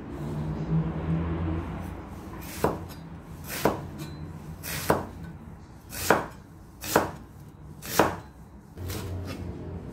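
Cleaver slicing a halved onion on a bamboo cutting board: six knife strokes about a second apart, each ending in a sharp knock on the board. A low hum runs under the first couple of seconds.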